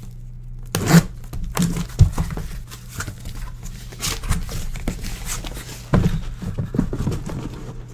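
A cardboard shipping box handled and opened by hand: flaps scraping and rustling, with several knocks as the box is turned and set down. A low steady hum runs underneath.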